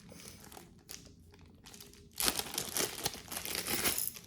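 Plastic packaging crinkling as it is handled and opened: faint rustling at first, then a louder spell of dense crinkling from about two seconds in.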